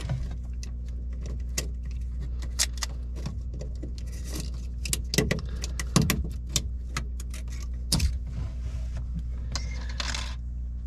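Hands working the plastic through-hull fitting of a boat's speed transducer and its stainless safety wire: scattered small clicks, taps and light metallic rattles as the retaining nut is worked loose, over a steady low hum.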